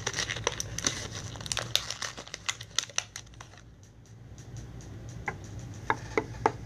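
Plastic toy packaging crinkling as it is handled: a fast run of crackles for the first three seconds or so, then a lull and a few separate clicks near the end.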